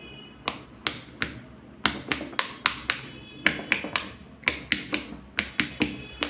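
Silicone pop-it fidget toy bubbles being pressed one after another: a series of short sharp pops, a few spaced out at first, then about three to four a second.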